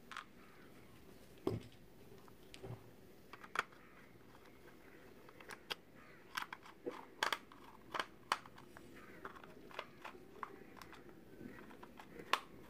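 Small screws being set into a plastic toy car body and turned in with a small screwdriver: irregular faint clicks of metal on plastic, most of them bunched together in the middle.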